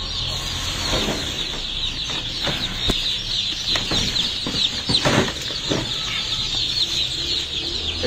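A crate full of young baladi (Egyptian native) chicks peeping nonstop: a dense chorus of high, downward-sliding peeps, with a few sharp knocks among them.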